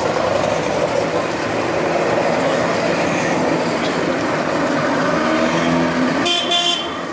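Goggomobil microcars with small air-cooled two-stroke twin engines driving slowly past over cobblestones, a steady engine-and-tyre drone. A short high toot comes about six seconds in.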